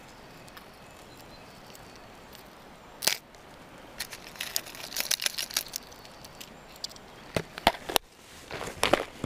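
A clear plastic lure box being handled: hard plastic crankbaits clicking and rattling in their compartments as one is picked out, then sharp clicks near the end as the lid is snapped shut. A river runs steadily in the background.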